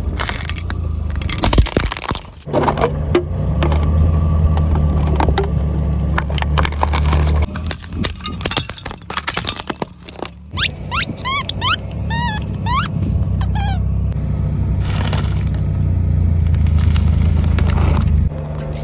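A car's engine runs steadily at low speed while its tyres roll over objects, which crack, crunch and pop in many sharp snaps. Near the middle comes a quick run of high squeaks that rise in pitch.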